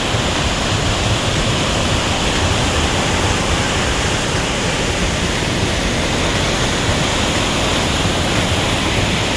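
Athabasca Falls: a large waterfall pouring, a steady, loud rush of falling water heard up close in its spray.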